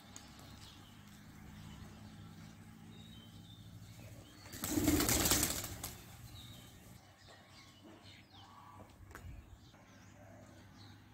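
A group of pigeons taking off together, their wings flapping loudly for about a second and a half, about halfway through.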